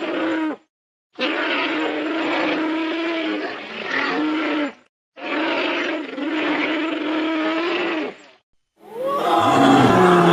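Creature roar sound effects: three separate roaring calls, each two to three seconds long, cut off cleanly with short silences between. Near the end a louder, deeper roar starts and falls in pitch.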